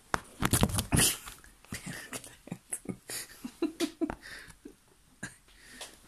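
Handling noise at a desk: a burst of loud knocks and rustles, then scattered clicks and light bumps.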